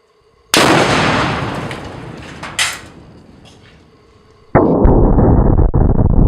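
Tannerite blasts set off by rifle fire. About half a second in, a sharp, loud bang rumbles away over about two seconds, with another crack near its end. About four and a half seconds in, a second loud, low, muffled blast starts and keeps rumbling.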